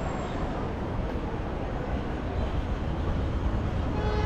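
Steady city street traffic noise: a low rumble of passing vehicles under an even hiss, with a faint tone from a vehicle near the end.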